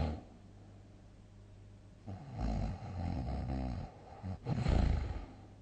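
A sleeping person snoring loudly: the end of one snore at the very start, then a snore of about two seconds starting two seconds in, a brief catch, and a louder, deeper snore near the end.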